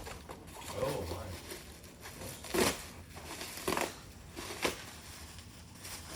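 Toy box packaging being handled and pulled open, crinkling and rustling, with three sharp cracks about a second apart starting between two and three seconds in.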